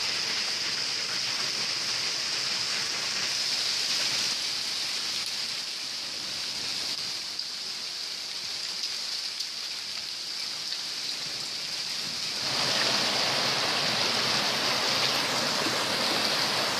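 Heavy downpour from a cloudburst, a steady hiss of rain. About twelve seconds in, the sound turns abruptly fuller and a little louder, with rushing water from the runoff flooding the lane.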